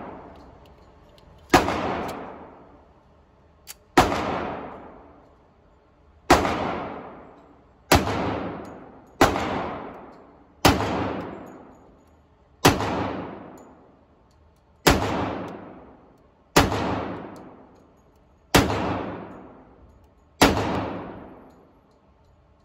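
.45 1911 pistol fired in slow single shots, eleven in all, one every one and a half to two and a half seconds. Each shot echoes and fades over about a second in the indoor range.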